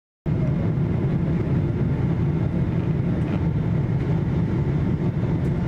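Boeing 777-200 cabin noise heard from a window seat during the landing approach with flaps extended: a steady, deep rumble of engines and airflow that starts abruptly about a quarter second in.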